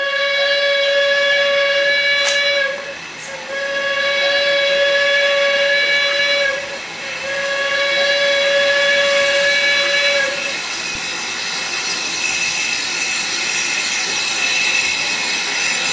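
Narrow-gauge steam locomotive's whistle sounding three long blasts of about three seconds each, one steady pitch, followed by steady steam hissing as the engine approaches.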